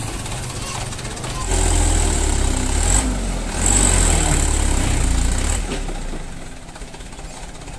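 Overloaded Mitsubishi Canter dump truck's diesel engine revving hard under load about a second and a half in, with a brief dip partway, then dropping back toward idle near the end.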